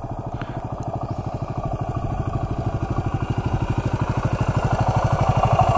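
Yamaha WR250 single-cylinder four-stroke dirt bike engine idling with an even, rapid putter, while a second WR250 rides up and grows louder towards the end.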